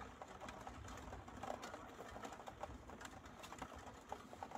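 Faint patter of rain during a thunderstorm: many quick, irregular ticks and taps of drops over a soft hiss.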